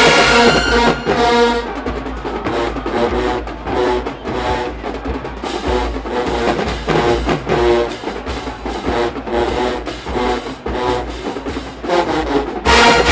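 HBCU marching band playing. A full brass chord at the start gives way to a drum-heavy passage of rapid drum hits with short horn punches. The full horn section comes back in near the end.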